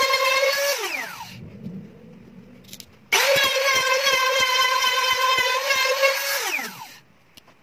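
Small electric trim router running at full speed with a high, steady whine while cutting away the old bridge of a nylon-string classical guitar through a template jig. It winds down with falling pitch about a second in, starts again about three seconds in, and winds down and stops near the end.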